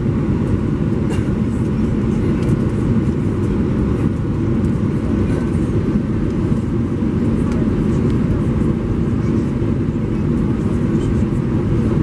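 Steady low rumble in the cabin of an Airbus A320-214 on final approach: its CFM56 turbofan engines and the airflow over the airframe, heard from a window seat over the wing.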